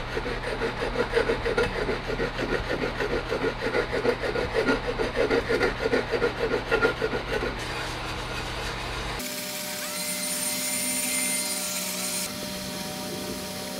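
Steel hatchet blade rasping back and forth on a strip of abrasive sanding belt in quick, even strokes, about two to three a second, honing the edge bevel of a small shingling hatchet. About nine seconds in the sound changes abruptly to a steady hiss.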